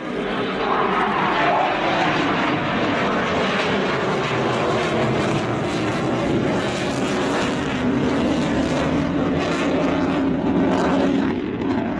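Panavia Tornado's twin RB199 turbofan engines passing low and loud, a jet roar whose tone falls slowly in pitch as the aircraft goes by.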